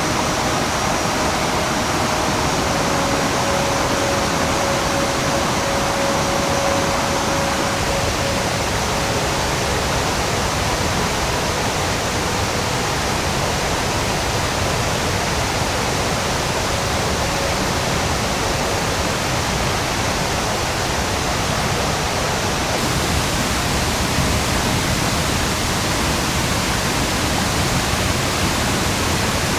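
Mountain stream water rushing over rapids, a steady, unbroken rush, with a faint steady tone above it during roughly the first third.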